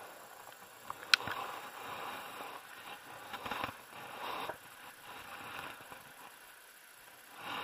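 Plastic soft-bait package and tackle being handled: short bouts of crinkling and rustling, with one sharp click about a second in.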